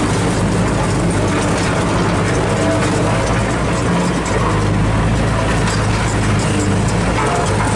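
Old Sakai R2 tandem road roller's diesel engine running steadily and loudly as the roller drives, heard from the operator's seat.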